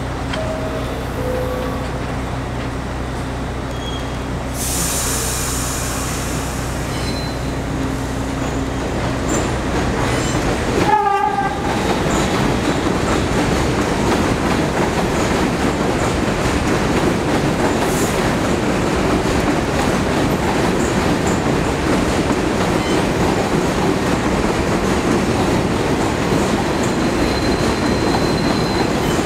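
Steady low hum, with a high hiss lasting about two seconds near the start. About eleven seconds in, a brief horn sounds, and then an NYC subway train (R62A cars) rolls through the rail yard, its wheels running steadily on the track.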